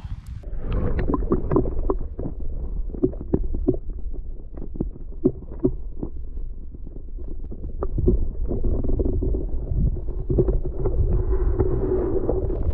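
Steady low rumble on the microphone with many irregular knocks and clicks: handling and wind noise.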